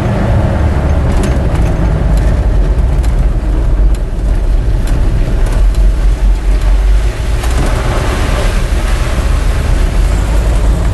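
Dodge Power Wagon's 360 cubic-inch V8 running on wood gas from an onboard gasifier while the truck drives, heard from inside the cab as a loud, steady low rumble.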